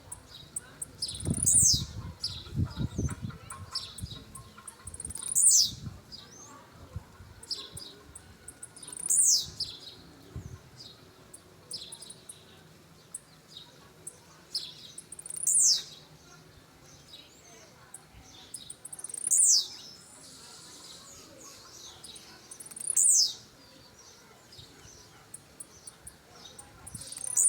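Blue-black grassquit (tiziu) singing its short song over and over, about every four seconds: a few quick high notes ending in a sharp downward sweep. A few low thumps in the first few seconds.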